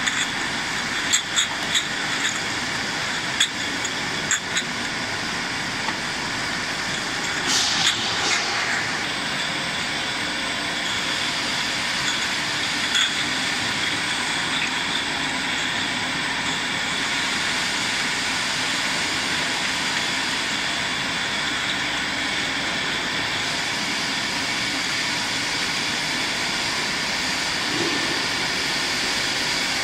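Jar-conveyor machinery of a fruit-canning line running with a steady mechanical noise. Empty glass jars clink against each other on the conveyor in the first few seconds, and there is a brief hiss about eight seconds in.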